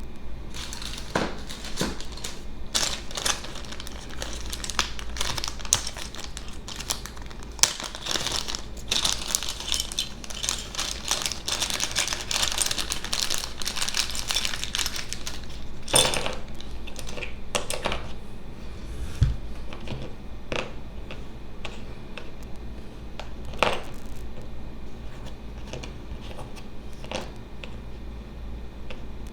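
Packaging being handled and unwrapped: plastic and paper crinkling, densest about a third of the way in, with scattered clicks and a few sharper knocks.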